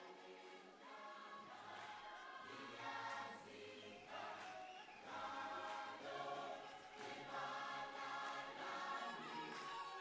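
Quiet background music: a choir singing held, sustained chords that shift every second or so.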